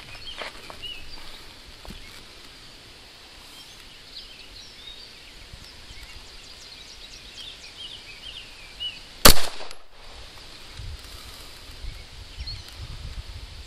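A single Glock pistol shot about nine seconds in, loud and sharp with a short echo. Small birds chirp faintly in the background.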